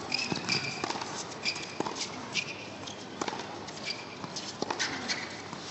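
Tennis shoes squeaking in short chirps on an indoor court amid footsteps, with a few sharp knocks of ball or racket at irregular moments.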